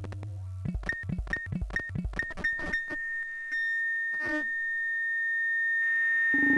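Electronic synthesizer music: a quick, even run of low pulses that stops about three seconds in, under a long held high note, with a low note coming in near the end.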